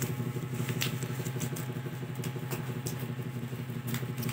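Steady low motor hum with a fast flutter, with light clicks and rustles from handling close to the microphone.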